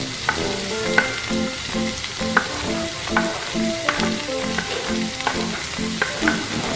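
Sliced onions and curry leaves sizzling in hot oil in a pan, with a spatula stirring and clicking against the pan several times. Soft, rhythmic background music plays underneath.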